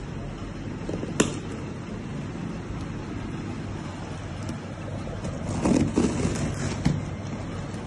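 Scissors slicing and scraping along packing tape on a cardboard carton, a scratchy rustle in the last few seconds, with a sharp click about a second in and another near the end, over a steady room hum.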